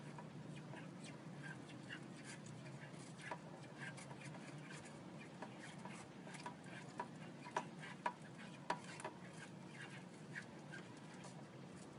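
Steady low hum of an aquarium's filter or pump, with irregular small clicks and taps scattered over it, a quick run of the loudest ones after the middle.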